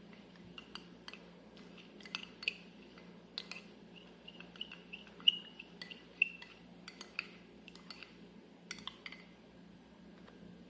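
A metal spoon clinking against a cup while honey is stirred into the mixture: about a dozen light, irregular clinks, some ringing briefly.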